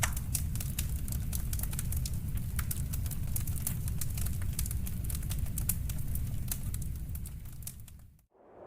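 Wood fire crackling in a fireplace: a steady low rumble of flames with frequent sharp pops and snaps. It fades out near the end, and a rushing wind sound starts just before the end.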